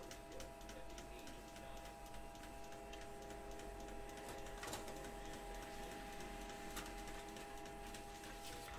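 Office printer running: a steady mechanical whir of several tones with fine rapid ticking as a page feeds through. A lower tone joins about three seconds in.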